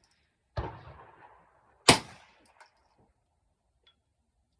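.22LR rifle shots from a Ruger 10/22: a duller report about half a second in, then a louder, sharper crack about two seconds in.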